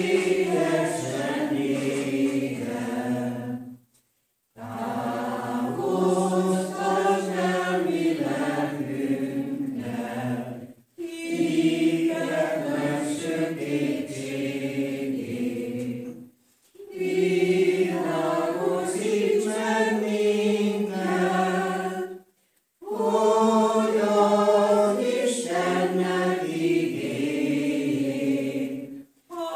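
Congregation singing a hymn together without accompaniment, in phrases of about six seconds with short pauses for breath between them.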